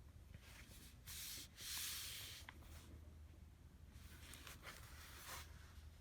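Faint rubbing and rustling handling noise: two short scratchy bursts a second or two in, then softer ones near the end, against near silence.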